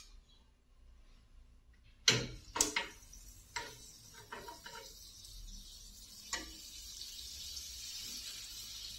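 Metal kitchen tongs clacking several times against a frying pan and the bread as the toast slices are lifted and turned, starting about two seconds in. From about halfway, a hissing sizzle of bread frying in the pan builds toward the end.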